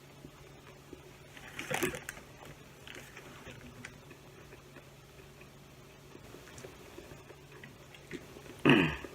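Someone eating a sub sandwich: two short louder bursts of biting and mouth noise, about two seconds in and again near the end, with faint small chewing sounds between, over a low steady hum.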